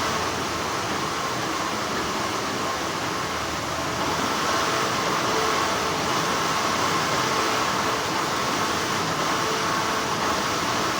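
Textile factory machinery running with a steady, continuous hum, an even drone with faint steady tones in it.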